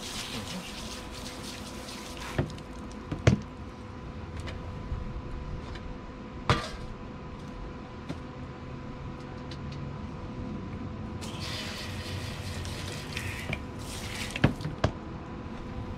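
Water spraying from a garden hose's pistol-grip nozzle in short bursts, first as it starts and again in two bursts about two-thirds of the way through, with a few sharp knocks in between.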